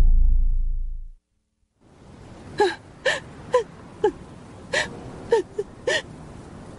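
A deep low boom fading away over about a second, then a moment of silence. After that a woman sobs in short, gasping, wavering cries over a quiet steady background.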